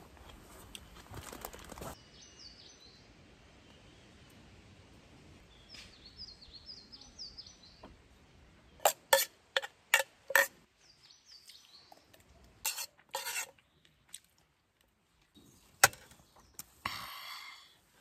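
Metal spoon clinking and scraping against a thin aluminium pot while the last of a meal is eaten: a few clusters of sharp clinks and a short scrape near the end. Birds chirp faintly in the first part.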